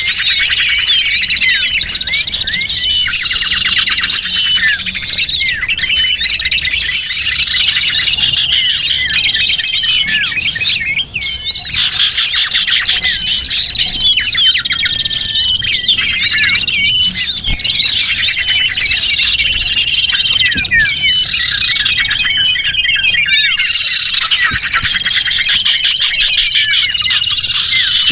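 Dense, loud twittering of many small birds: overlapping high chirps and trills that keep on without a break. It is a recorded lure call for trapping small birds.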